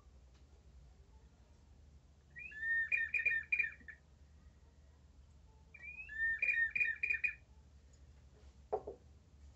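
Small ceramic double-chambered water whistling vessel tilted back and forth, water pushing air through its whistle: two warbling whistles of about a second and a half each, each opening with a short rising glide. A short knock near the end.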